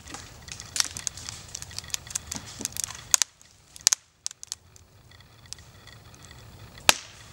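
Hinge wood of a partly cut aspen (poplar) crackling and snapping as the tree leans over on it, its fibres tearing under the bend. A rapid run of sharp, irregular cracks fills the first three seconds. Then comes a near-quiet pause with a few lone ticks, and one loud crack near the end.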